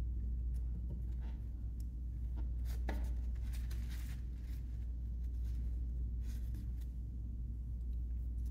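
Faint scratchy strokes and light taps of a paintbrush being rinsed in a plastic cup of water and worked against the canvas, over a low steady hum.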